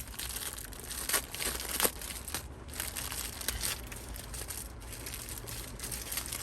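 Plastic packaging crinkling and rustling as it is handled, with a couple of sharper knocks about one and two seconds in.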